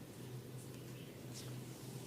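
Hands rubbing on skin during a head massage: a few soft, brief swishes over a steady low hum.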